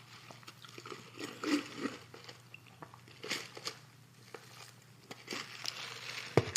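A person biting and chewing crunchy food close to the microphone, with scattered crackles and a sharp click near the end.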